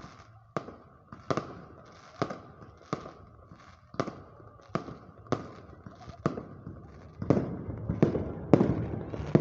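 Fireworks going off: a sharp bang about every two-thirds of a second, which thickens about seven seconds in into a louder, denser barrage with a continuous rumble.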